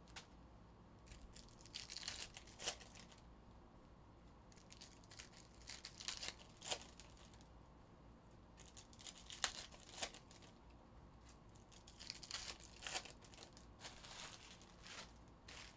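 Foil trading-card pack wrappers being torn open and crinkled by hand, in four short spells of rustling with a few sharp crackles.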